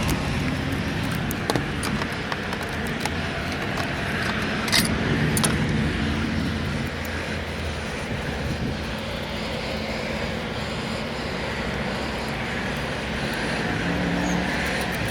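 Steady vehicle noise with a low hum, broken by a few brief sharp clicks.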